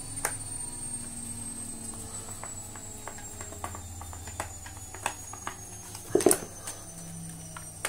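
Screwdriver doing up a screw in the plastic housing of a Dyson vacuum's cleaner head: scattered light clicks and scrapes, with a louder clatter of plastic about six seconds in.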